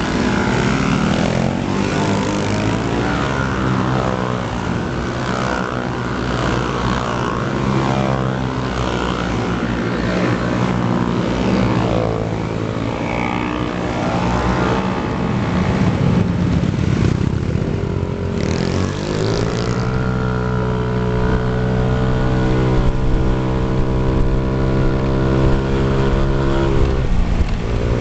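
Several motor scooter engines, a Honda Ruckus among them, running and revving as a group rides off together, their pitches rising and falling over one another. About two-thirds of the way through, one engine settles into a steady drone at cruising speed.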